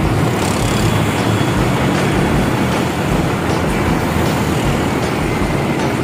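Concrete pump truck running under load, pumping concrete through a hose laid on the slab. Its drone is loud and steady, with a low pulse about twice a second.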